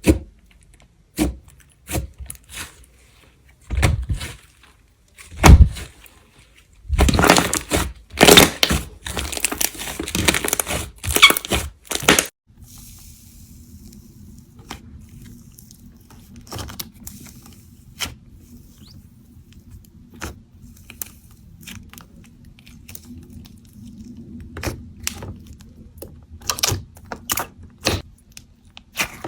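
Hands pressing, poking and stretching clay slime, giving sharp clicks and crackles that come thickest from about seven to twelve seconds in. After that, sparser, quieter clicks over a faint steady hum.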